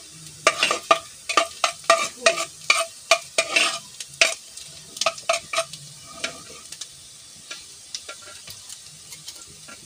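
Metal spoon stirring chopped onion frying in oil in a pot, scraping and clinking against the pot over a faint sizzle. The stirring is quick for the first five seconds or so, then slows to a few scattered taps.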